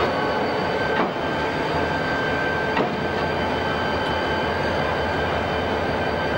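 Shop transfer table moving a chocked diesel locomotive: steady machinery running with a high whine, and two short knocks, about a second and about three seconds in.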